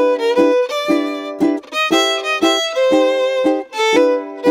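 Background music: an instrumental tune of short, quick notes, each starting sharply, several to the second.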